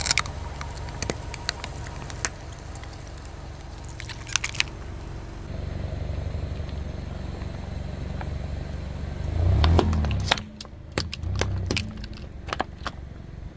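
A car tyre rolling slowly over jars of slime, with sharp cracks and crunches as they give way. After a cut the tyre rolls over plastic bottles of coloured jelly: a low rumble of the tyre on asphalt, loudest about ten seconds in, with crackling as the bottles split and squash.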